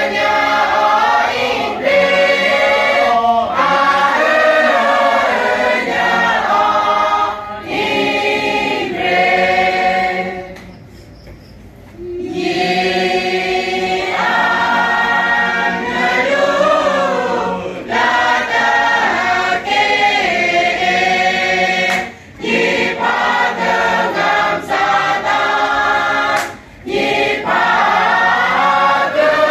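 Choir singing, with a pause of about two seconds a third of the way through before the singing starts again.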